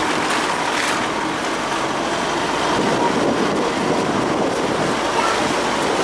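Steady, loud rushing noise of an off-road SUV driving along a dirt track.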